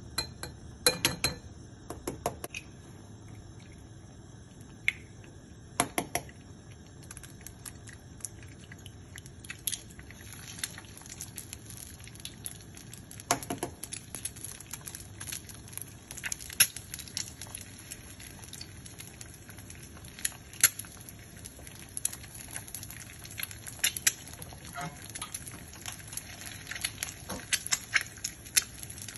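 Quail eggs frying in hot oil in a small nonstick pan: scattered crackles and pops that come more often in the second half. A few sharp taps in the first half, as shells are cracked and eggs go into the pan.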